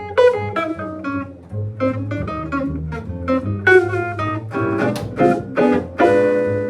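A band playing a groovy tune: quick plucked guitar notes and chord stabs over a steady bass line, with a longer ringing chord near the end.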